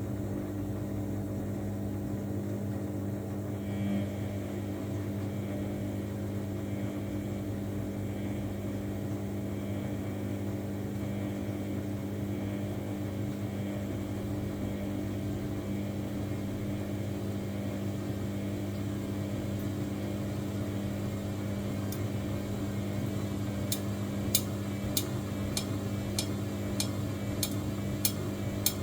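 Samsung washing machine running with a steady hum. Near the end, a run of sharp, evenly spaced clicks starts, about two a second.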